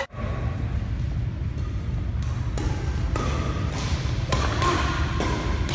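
A doubles badminton rally on a wooden court: about six sharp knocks spread through, from racket hits on the shuttlecock and footfalls on the floor, over a steady low rumble.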